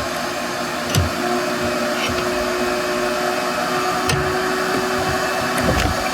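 Steady whine of an electric motor running, with a few short knocks and clunks about a second in, around four seconds in and near the end.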